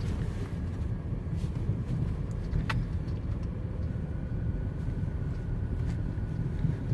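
Steady low rumble of a Subaru Outback driving, with a single sharp click about two and a half seconds in.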